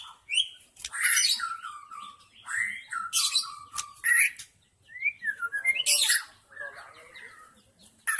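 White-rumped shama singing in short phrases of quick varied whistles and sharper chattering notes, with brief pauses between phrases.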